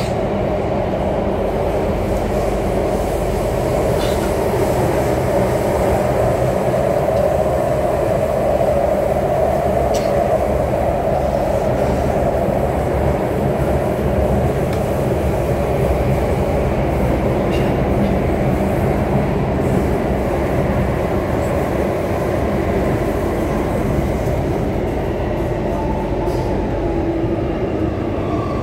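North East Line metro train running through a tunnel, heard from inside the carriage: a steady rumble of wheels and motors with a few faint ticks. Near the end a faint whine comes in as the train starts to slow for the next station.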